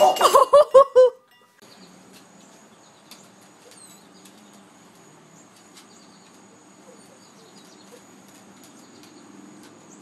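A loud, short run of rapid pitched cries in the first second, then a quiet outdoor background with faint bird chirps, a thin high steady tone and scattered light clicks.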